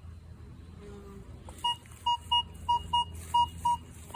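Minelab Vanquish 440 metal detector beeping as its coil swings over a buried modern quarter, the coin target reading about 30. It is silent for about the first second and a half, then gives about seven short, high beeps in quick succession.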